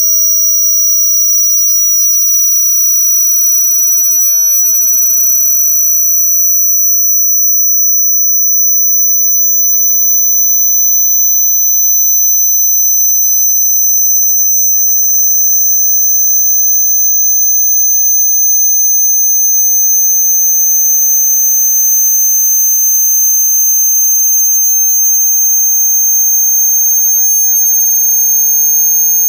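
Electronically generated sine-wave test tone: a steady high whistle near 6 kHz that rises very slowly in pitch, part of a slow frequency sweep for testing loudspeaker response. A second, much higher tone sounds above it.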